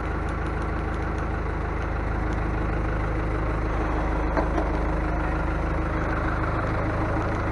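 Heavy diesel engine idling steadily, with one short knock a little past halfway.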